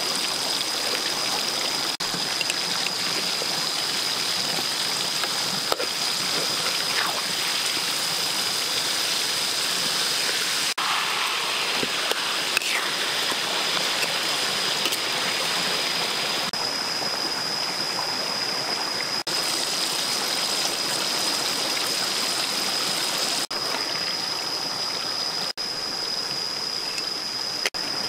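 Whole fish frying in hot oil in a steel wok, a steady sizzle.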